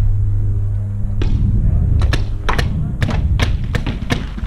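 Paintball fire: a string of about ten sharp pops and thuds over a couple of seconds, starting about two seconds in. Before that, a steady low hum stops a little over a second in.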